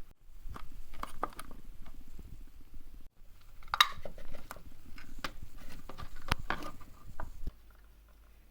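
Small handling noises of wiring up a kettle-style socket and rocker switch in a plastic end cap: scattered clicks, taps and rustles of wires and parts. It falls much quieter about a second before the end.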